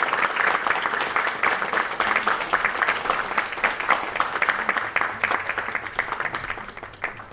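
Audience applauding: many hands clapping in a dense patter that thins out near the end and stops.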